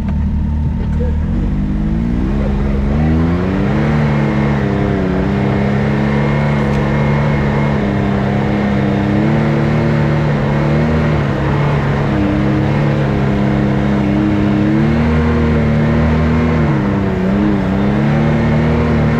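Can-Am X3 side-by-side's turbocharged three-cylinder engine running under load on a trail. It climbs in revs about two seconds in, then pulls fairly steadily, easing off and picking up again a few times.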